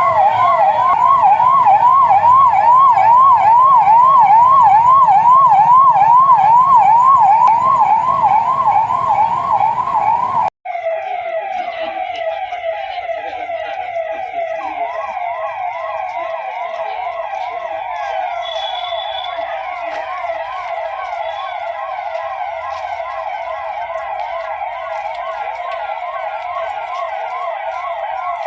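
Police vehicle siren wailing in a fast, repeating up-and-down sweep, about three cycles a second. About ten seconds in it cuts off abruptly, and a quieter, faster, narrower warble carries on.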